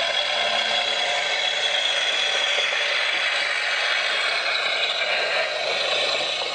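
Engine sound effect of a vintage petrol railmotor played from a cheap MP3 player through the model's small on-board speaker: a steady, thin running clatter with little bass.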